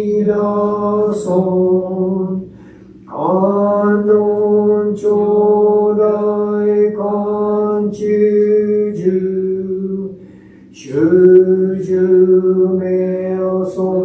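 A male Buddhist minister chanting liturgy in long held notes on a nearly level pitch, pausing briefly for breath about two and a half seconds in and again near ten seconds.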